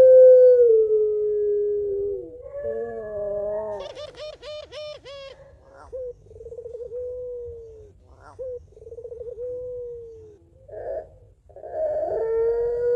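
Puter pelung, a domestic ringneck (Barbary) dove, calling. A long drawn-out coo falls away. It is followed by a rapid rolling laughing call and several shorter trilled coos, and a second long coo starts near the end.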